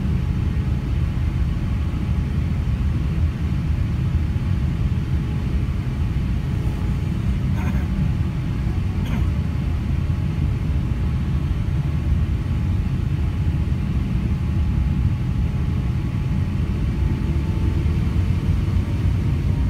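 Cabin noise of an Airbus A350-900 taxiing: a steady low rumble from its Rolls-Royce Trent XWB engines at taxi power and the rolling airframe, with a faint engine whine that rises slightly near the end.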